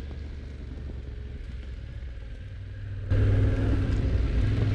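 A steady low rumble, then about three seconds in the louder, steady running of a Yamaha Ténéré 700's parallel-twin engine heard from the rider's seat, riding along a forest dirt track.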